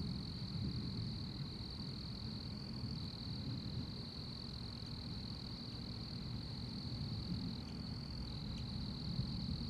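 Steady chorus of night insects such as crickets, one high continuous trill, over a low steady rumbling noise.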